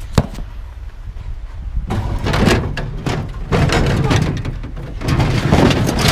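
Sheet-metal housing of an air-conditioner condenser unit being handled and shifted, with metal scraping and knocking. There is one sharp knock near the start, then a busier stretch of scraping and banging from about two seconds in.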